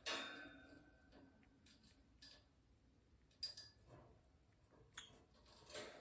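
Lovebird making soft kissing smacks with its beak: about five short sharp clicks a second or so apart, the first and loudest at the start with a brief high tone after it.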